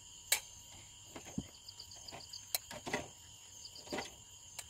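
Crickets chirping steadily, with scattered short clicks and taps from boiled corn kernels and thin coconut-leaf-rib skewers being handled against a small steel cup and a plastic plate.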